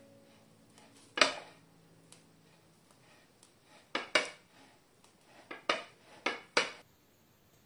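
Sharp clinks and knocks of kitchenware on a countertop, about seven in all: one loud knock about a second in, then a cluster of them in the second half.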